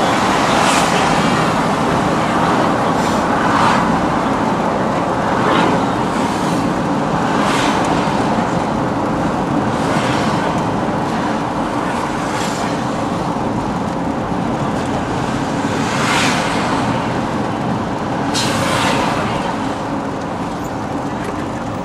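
Steady road and engine noise from inside a moving vehicle on a busy avenue, with traffic swishing past every few seconds.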